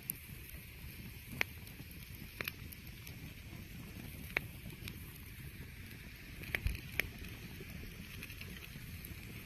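Wood campfire crackling, with sharp pops every second or two and a quick cluster of them about two-thirds of the way through, over a steady low rumble of wind on the microphone.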